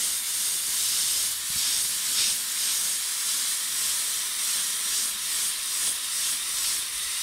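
Badger Anthem 155 airbrush spraying black paint: a steady hiss of compressed air rushing through the nozzle, swelling slightly now and then as the trigger is worked.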